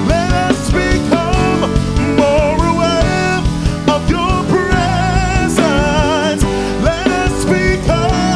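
Church praise music: a band with drums under a singer holding long, wavering notes.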